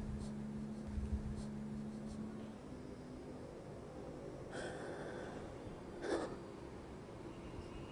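A man breathing heavily with snorting, sniffling breaths, slumped in distress, over a low steady hum that fades about two and a half seconds in. Two short, louder breaths or sniffs come about four and a half and six seconds in.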